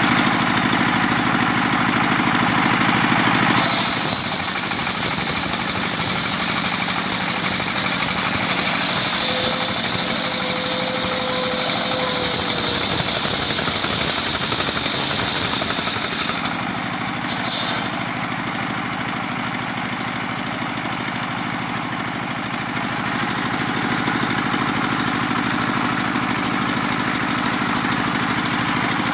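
Homemade sawmill's engine running steadily while its blade saws through a coconut trunk. A loud, high-pitched cutting hiss sits over the engine from about four seconds in until about sixteen seconds, then stops abruptly, leaving the engine running on its own.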